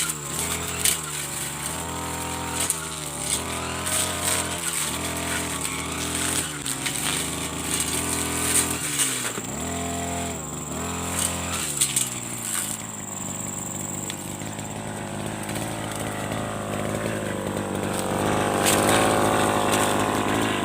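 Brush cutter engine running hard with a cutting blade, its pitch dipping and recovering about once a second as the blade bites into senduduk shrub stems. About twelve seconds in, the dips stop and the sound turns steadier.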